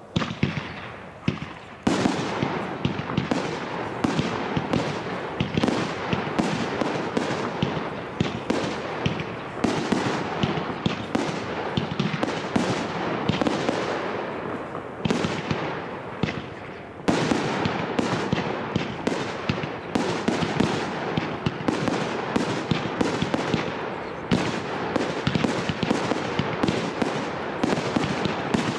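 Fireworks display: a dense barrage of rapid bangs and crackles, many a second. It starts abruptly about two seconds in, eases a little after fifteen seconds and surges again at about seventeen seconds.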